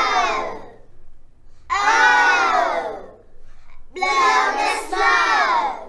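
A class of young children chanting together in unison three times, each call sliding down in pitch, as they practise the long 'oh' vowel sound.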